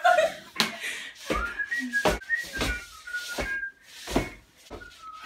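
A whistled tune of short, hopping high notes, with several dull thumps along the way.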